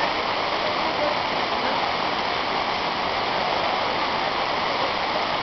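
Steady rush of a waterfall, water pouring over rock.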